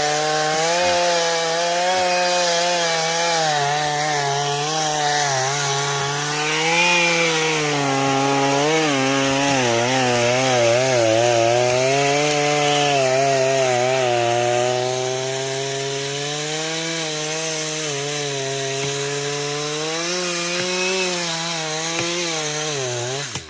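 Stihl 172 two-stroke chainsaw running under load while cutting wood, its engine pitch wavering down and back up as the chain bites; it cuts off at the very end.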